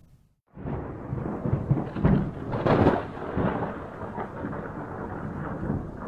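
Thunder rumbling over a steady hiss of rain, starting about half a second in and swelling between two and three seconds in.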